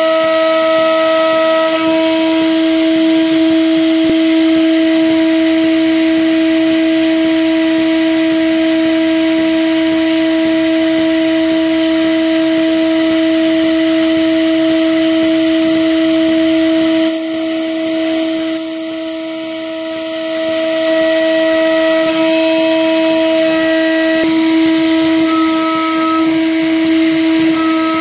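CNC router spindle milling an aluminium plate: a loud, steady whine with several overtones over a hiss. It dips and changes briefly about 17 seconds in and picks up again near 20 seconds.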